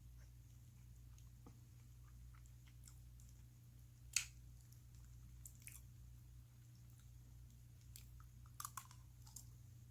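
Faint chewing of Spam, with soft wet mouth clicks scattered throughout and one sharper click about four seconds in, over a steady low hum.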